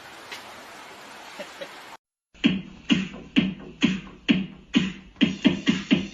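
Faint steady hiss with a few small ticks, cut off about two seconds in; then electronic music with a steady, heavy beat, about two beats a second.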